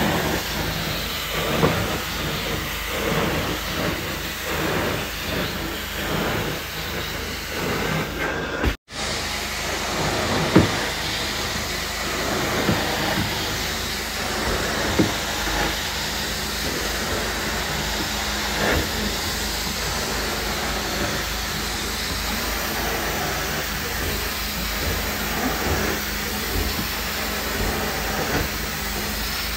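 Carpet-cleaning extraction wand running over carpet: a steady hiss of suction and spray, pulsing rhythmically with the wand strokes in the first several seconds and cutting out for a moment about nine seconds in.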